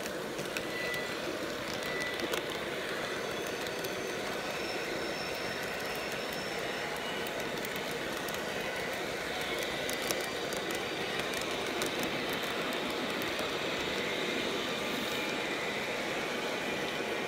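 Model train running on its track, heard from on board: a steady rolling noise of wheels on the rails with scattered short clicks over the rail joints.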